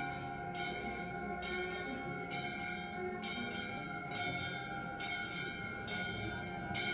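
Quiet background music with steady bell-like tones and a soft pulse about once a second.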